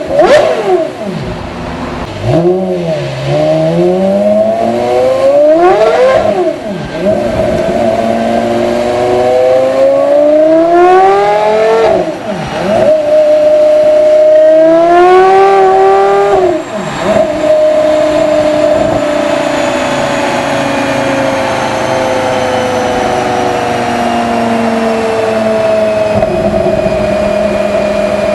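High-performance sports car engine under hard acceleration, its pitch climbing steeply and dropping sharply at each of several gear changes. From about two-thirds of the way in it holds a long high note that slowly sinks.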